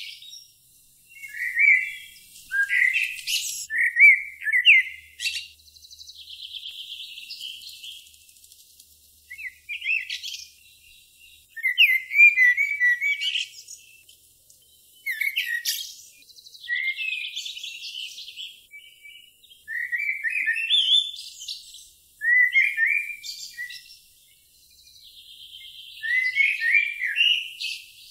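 A songbird singing short, quick phrases of gliding notes, repeated every couple of seconds. A quieter, higher buzzy trill comes between some of the phrases.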